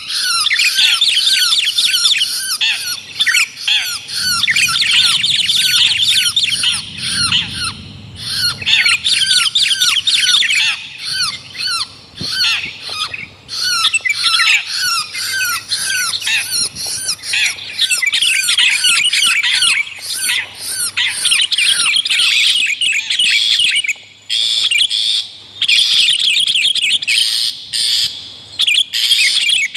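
Bird-lure recording of a long-tailed shrike (cendet) calling, mixed with sooty-headed bulbul (kutilang) song: a dense, almost unbroken stream of rapid, high-pitched repeated notes, with a brief break about 24 seconds in.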